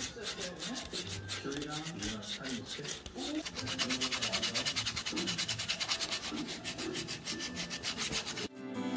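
Sandpaper rubbed by hand back and forth over a carved wooden egg tray, in quick, even scraping strokes of several a second that get faster and denser partway through.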